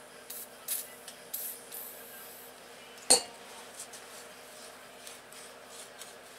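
An aerosol can sprays in several short hissing bursts onto a torch-heated metal part, and vapour rises from it. About three seconds in, a single sharp metallic clink is the loudest sound.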